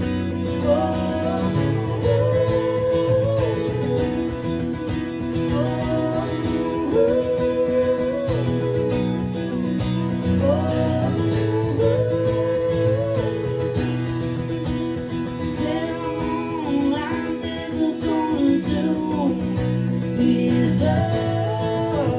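Live acoustic music: acoustic guitar playing under a gliding melody line, with no words sung.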